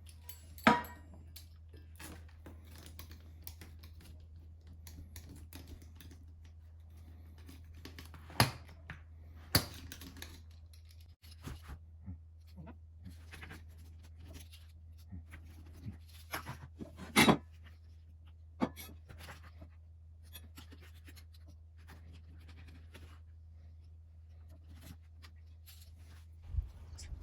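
Objects being handled: scattered clicks, knocks and light scraping, a few sharp knocks standing out, over a steady low hum.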